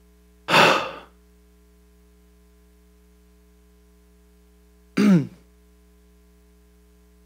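A man clearing his throat twice, once about half a second in and again, more voiced, about five seconds in, over a steady low hum.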